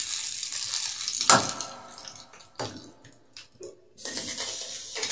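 Hot tempering oil with mustard seeds, dry red chillies and curry leaves sizzling as it is poured from a ladle onto yogurt-mint chutney. The hiss fades after about two seconds, with one sharp knock a little over a second in.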